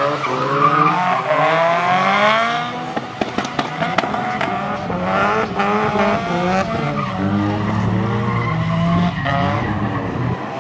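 Two Nissan Silvia drift cars sliding in tandem: their engines rev up and down as the throttle is worked through the drift, over the hiss of tyres skidding on a wet surface.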